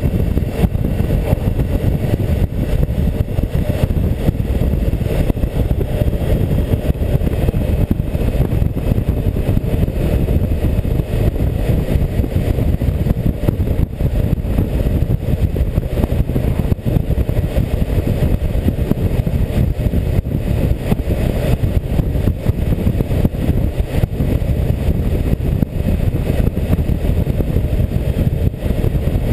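Steady low wind noise buffeting the microphone of a tank-mounted camera on a BMW K1600GTL touring motorcycle under way. The bike's inline-six engine and tyre noise run beneath it.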